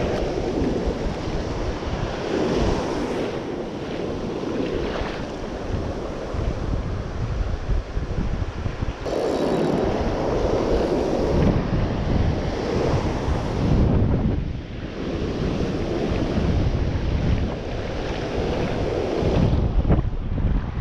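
Ocean surf breaking and washing through the shallows in repeated surges, with strong wind buffeting the microphone.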